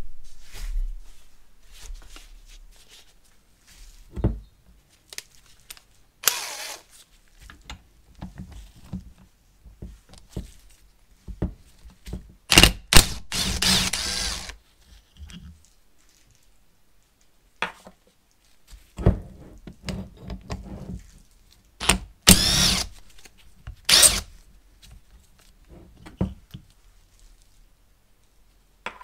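Cordless power tool running in several short bursts as it undoes the bolts on a rusty brake caliper, with knocks of metal between the bursts.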